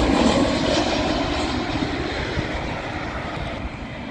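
Jet engine noise of a twin-engine Airbus airliner on final approach with its gear down. The noise is loudest at the start and fades steadily as the aircraft passes on toward the runway.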